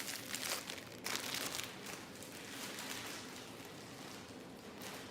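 Crinkling and rustling as Velcro hair rollers are picked out of their box, busiest in the first two seconds and then thinning to a faint rustle.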